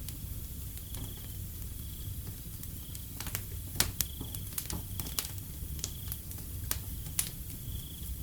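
Wood fire crackling with irregular sharp pops, the loudest a few seconds in, over a low steady rumble. A cricket chirps with a short high note about once a second.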